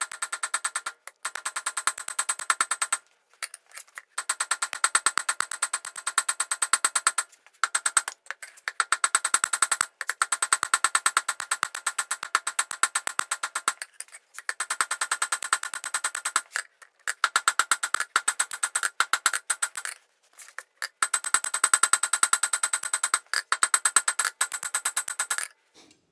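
Rapid hammer blows on an anvil, drawing out a hot piece of coil spring steel, with a clear metallic ring after each strike. The blows come in long runs of several strikes a second, broken by short pauses every few seconds.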